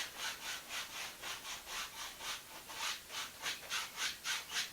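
Paintbrush bristles brushing across a wet painted canvas in quick, even back-and-forth strokes, about four a second, dragging the wet paint down into reflections.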